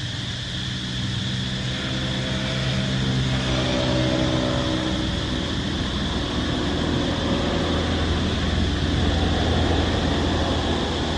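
A motor vehicle's engine passing, its pitch rising slowly over the first few seconds, then a heavier low rumble later on. A steady high insect drone runs underneath.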